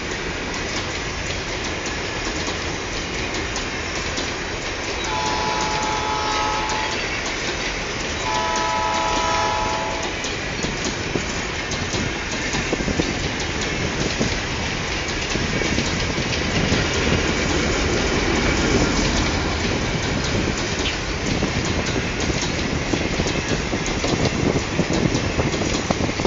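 Freight train of GR12 and ALCO diesel locomotives hauling ballast hopper wagons passing close by, with steady wheel rumble and rapid clicking of wheels over the rails. A multi-chime locomotive horn sounds two blasts of under two seconds each, about five and eight seconds in.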